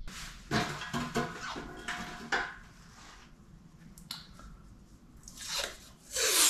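Small tools and parts clattering as they are handled, then masking tape being pulled off its roll in two quick, loud rips near the end.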